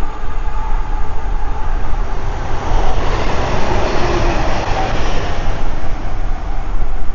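A train passing close by, its rail and wheel noise swelling to a peak about halfway through and easing off toward the end.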